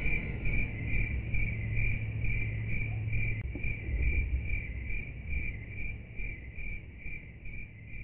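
Cricket chirping in a steady, even rhythm, about two chirps a second, over a low hum; it grows fainter toward the end.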